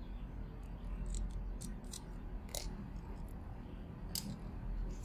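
Small scattered clicks and scrapes of a small screwdriver working inside a Mini Maglite's aluminium barrel to pry out the switch assembly. There are two sharper clicks, about two and a half and four seconds in.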